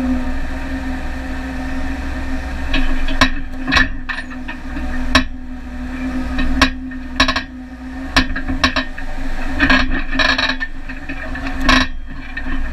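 Off-road vehicle on a rough rocky trail: a steady engine drone under repeated sharp knocks and short rattles, which start about three seconds in.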